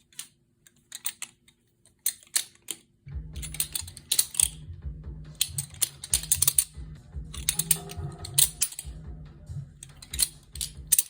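Balisong bottle opener being flipped: irregular runs of sharp metallic clicks and clacks as the handles swing and knock together. Quiet background music joins about three seconds in.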